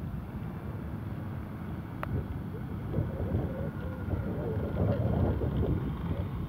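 Wind buffeting the microphone: a low, uneven noise that grows louder about halfway through, with one sharp click about two seconds in.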